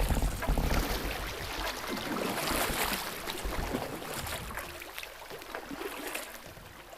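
Kayak paddle blades dipping and splashing while water rushes over a shallow, rocky riffle around the hull. A low rumble is strongest in the first second, and the sound grows quieter toward the end.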